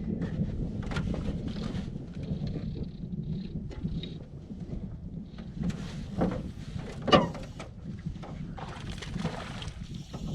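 Sounds of a small fishing boat drifting on a lake: a steady low rumble of wind and water, with scattered knocks against the boat. The loudest, sharpest knock comes about seven seconds in, and a short hiss follows around nine seconds.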